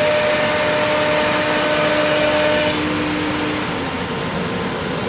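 C.R. Onsrud 381G18CD CNC router running: steady machine noise with a motor hum that cuts off about three seconds in, and a faint falling high whine near the end.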